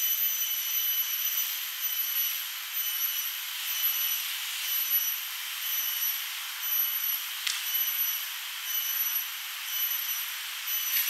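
A steady, high-pitched insect drone that swells and fades about once a second, with one sharp click about two-thirds of the way through.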